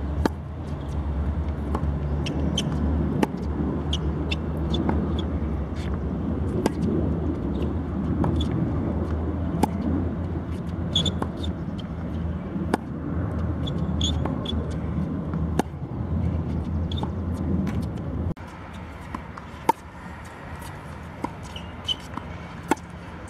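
Tennis balls struck by a racket and bouncing on a hard court during a rally: sharp pops every second or two, over a steady low rumble that drops away about eighteen seconds in.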